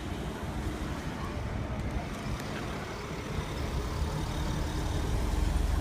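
Steady low rumbling background noise that grows louder near the end.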